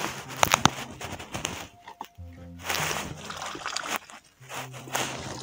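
Water splashing and sloshing in bursts, with rustling and a few sharp knocks about half a second in, as a mesh keepnet holding caught crucian carp is hauled up out of the water onto a wooden platform. A low steady tone runs underneath.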